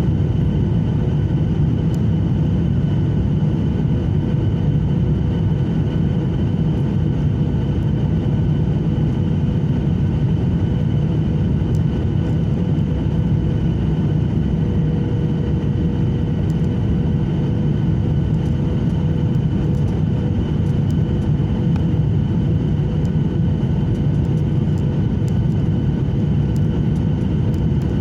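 Airplane in flight with its engines running: a steady low rumble of engine and rushing air, with faint steady whines above it.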